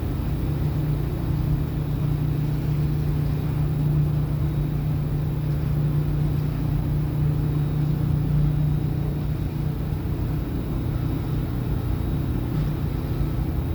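A ship's engine running steadily under way: a constant low drone with an even rushing noise over it.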